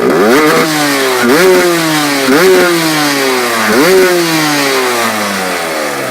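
2001 Aprilia RS125's 125 cc two-stroke single, fitted with a Pipercross air filter, revved hard four times: each time the pitch shoots up quickly and then falls slowly back, the last run-down sagging toward idle near the end.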